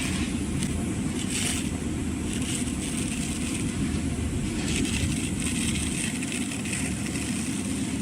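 A 1350 mm paper kitchen towel rewinding machine running steadily at speed: a continuous low mechanical rumble with a hiss over it, and a few brief swells in the hiss.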